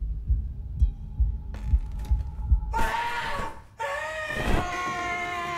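Heartbeat sound effect, low thumps about twice a second, then about three seconds in a long drawn-out scream that breaks off for a moment and starts again.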